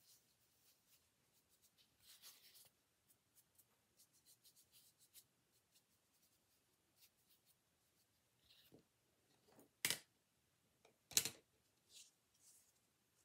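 Faint scratchy rubbing strokes of a small brush applying blush to a doll's cheeks, with two sharp knocks about ten and eleven seconds in as something is set down on the table.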